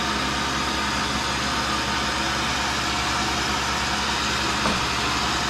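Tool and cutter grinder running: the wheel spindle motor and the belt-driven workhead motor hum steadily while the part is brought up to the wheel, not yet touching it. A light tick about four and a half seconds in.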